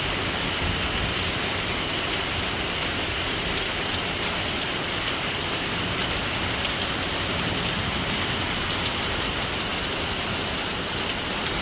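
Heavy rain falling steadily, a constant hiss of rain with no let-up.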